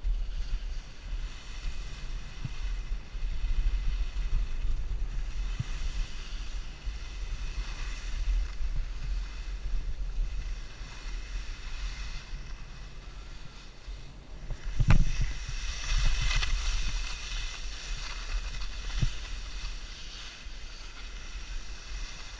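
Wind buffeting the microphone while skiing downhill, over the hiss and scrape of skis sliding and turning on snow. A single sharp knock about fifteen seconds in, typical of a ski or pole striking.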